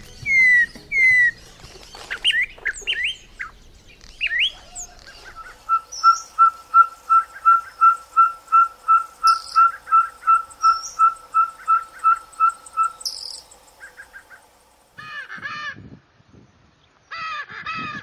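Ferruginous pygmy-owl singing: a long series of evenly spaced single toots on one pitch, about three a second, lasting some seven seconds. Before it, a songbird gives whistled phrases. Near the end come harsh squawks of Lear's macaws.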